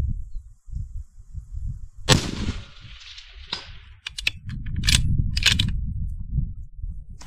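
A single rifle shot about two seconds in, its report trailing off briefly. A fainter crack follows a second and a half later, then a run of short sharp clicks.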